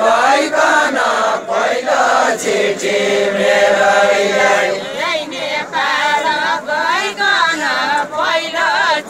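A group singing a Nepali Deuda folk song together, unaccompanied. Long held notes, and from about halfway through the voices waver in ornamented turns.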